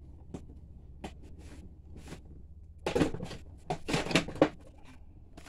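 Handling noise: a few faint clicks, then a cluster of rustles and knocks about three seconds in that lasts a second and a half.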